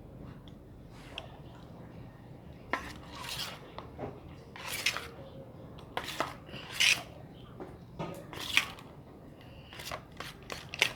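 Small spoon scraping and clinking against a little dish while stirring a glue-and-detergent slime mixture, in irregular strokes that begin a few seconds in.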